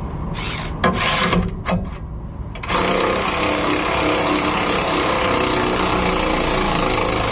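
Handheld power tool run in a few short bursts, then held running for about six seconds, working fasteners under a truck.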